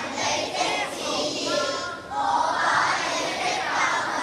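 A large group of children's voices together in unison, dipping briefly just before the two-second mark and then coming back in all at once.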